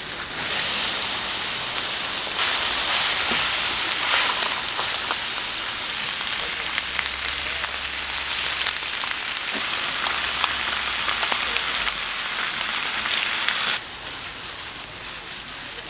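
Pieces of pork offal sizzling on a large iron griddle: a dense hiss with faint crackles that jumps up about half a second in and drops off abruptly near the end.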